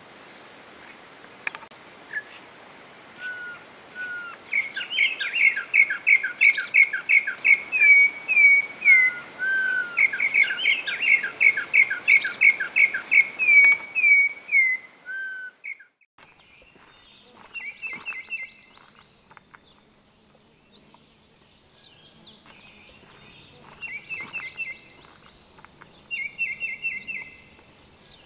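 Campo troupial (corrupião) singing loud runs of rapidly repeated whistled notes in two long series. About halfway through, it cuts to a quieter recording of a Baltimore oriole giving three short, fast chattering bursts.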